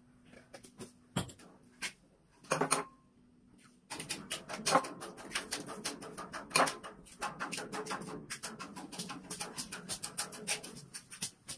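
Oil heating in a wok on a portable gas stove, crackling and popping in a dense, irregular patter from about four seconds in, after a few knocks and clicks.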